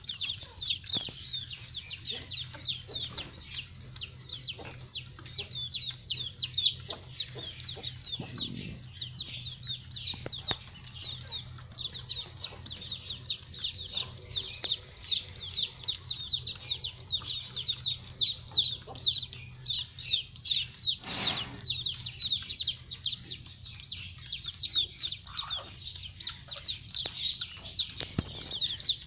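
Peafowl chicks peeping, a rapid run of short high falling chirps, about four a second, going on without a break, over a faint low steady hum.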